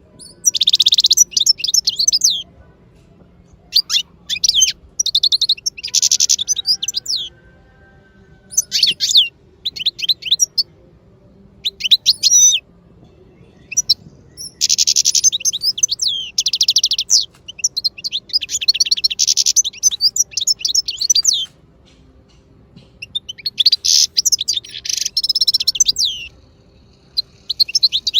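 Turquoise parrots chirping during feeding: rapid, high-pitched chattering calls in repeated bursts of one to two seconds, with short pauses between them.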